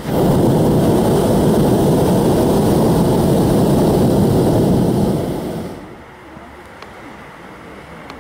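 Hot-air balloon's propane burner firing in one loud rushing blast that starts suddenly and fades out after about six seconds.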